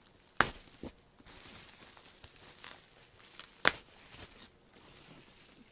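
Packaging wrapped around a doll crinkling and rustling as it is handled and pulled open by hand, with two sharp snaps, one about half a second in and one just past the middle.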